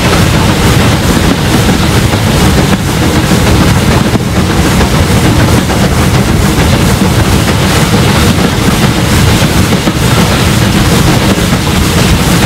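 Rebuilt Bulleid Merchant Navy class three-cylinder Pacific 35028 working hard up a 1-in-60 bank, heard close behind its chimney: a loud, steady exhaust whose beats come too fast to separate, mixed with wheel and running noise and wind on the microphone.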